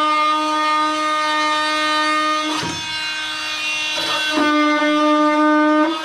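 Rockwell Sonicrafter corded oscillating multi-tool running with a steady high buzz while its blade works against the Jeep's rusty steel body panel. The buzz falters briefly about halfway through, then comes back stronger.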